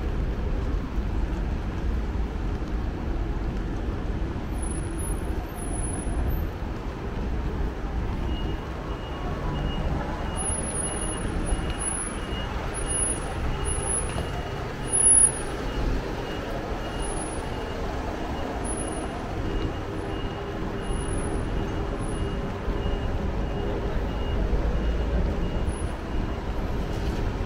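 City street traffic noise, with road vehicles passing. From about a third of the way in, a faint high beep repeats evenly in the background.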